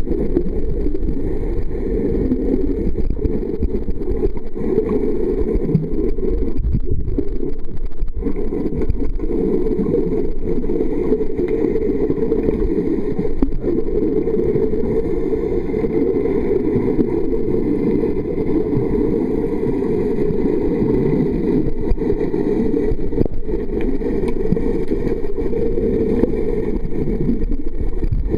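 Steady, muffled low rumble of water picked up by a waterproof camera's microphone held under water, with no distinct events.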